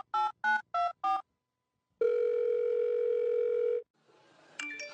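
A run of short electronic beeps like telephone keypad tones, about three a second and slightly changing in pitch. After a pause comes one steady electronic tone lasting about two seconds, like a phone's ringing tone. A brief noisy scuffle with a gliding sound comes near the end.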